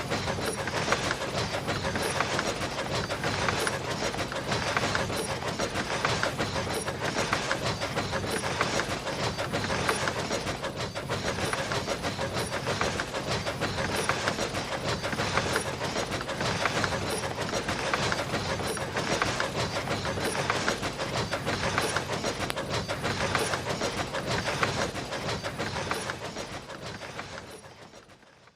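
Steam locomotive sound effect: an engine puffing steadily in a regular rhythm while hauling rolling stock, with the cars rattling and clattering on the rails. It fades out near the end.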